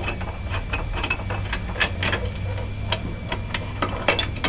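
Irregular light metallic clicks and taps of metal tools and parts being handled, over a steady low hum.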